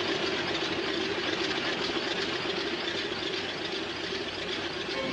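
Propeller airplane engine running, a steady drone.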